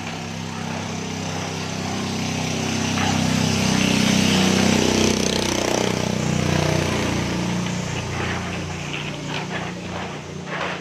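Engine of a motor vehicle passing nearby, growing louder to a peak about halfway through and then fading away.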